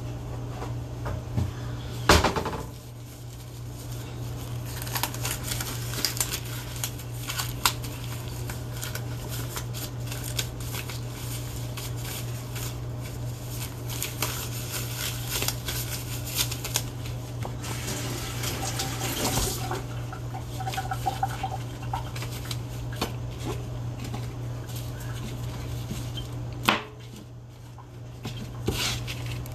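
Kitchen tap running for several seconds, with small knocks and clatter, as hands are washed. A sharp knock about two seconds in and another near the end, over a steady low hum.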